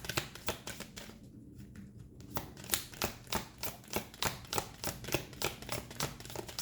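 Tarot cards being shuffled and handled: a run of light, irregular clicks and taps, a few a second.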